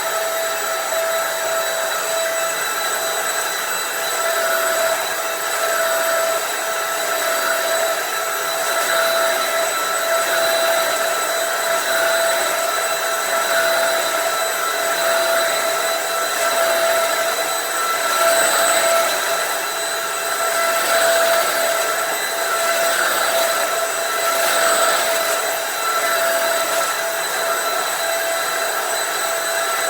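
Dirt Devil vacuum cleaner running continuously: a steady motor whine over a rush of air, swelling slightly in loudness now and then.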